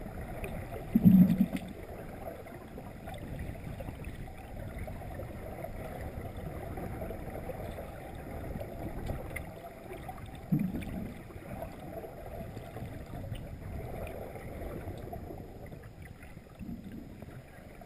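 Muffled underwater pool noise heard through a camera's waterproof housing, with three short low bursts, the first about a second in and the loudest.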